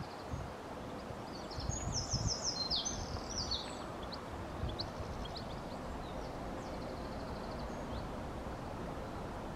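Small birds chirping and trilling in a dawn chorus, busiest about two to four seconds in and then scattered single chirps, over a steady low outdoor rumble.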